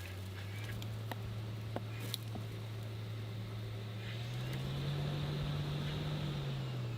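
Multitask CNC machine running during turning, with a steady low hum that rises in pitch about four seconds in and falls back near the end. A few light clicks come in the first two seconds.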